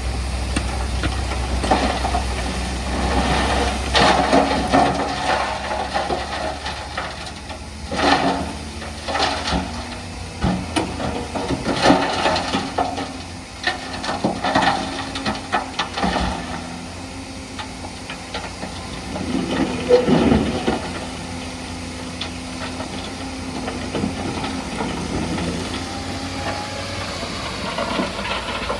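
Bulldozer at work: diesel engine running with irregular clanks and rattles, the loudest about four, eight, twelve and twenty seconds in. The deep engine hum drops away after about six seconds.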